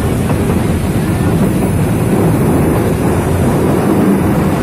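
Passenger train running at speed, heard from inside the carriage: a steady, loud low rumble of the wheels and carriage, with wind noise on the microphone.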